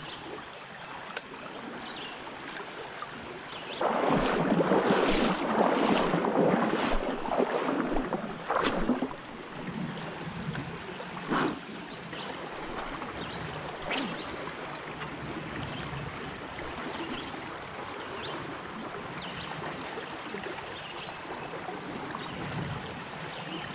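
River current rushing and lapping around a fishing kayak, swelling louder for a few seconds about four seconds in, with a few knocks against the boat.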